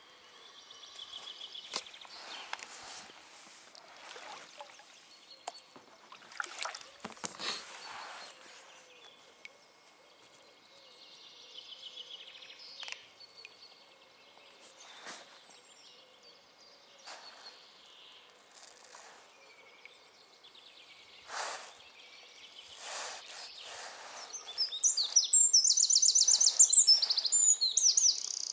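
Wild birds singing by a river, with scattered short knocks and splashes throughout. Near the end a bird close by gives a loud, fast, high trill, the loudest sound here.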